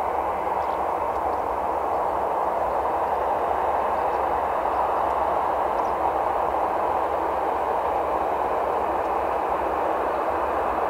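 Boeing 737-800's CFM56-7B jet engines running at idle thrust as the airliner taxis past, a steady rushing noise.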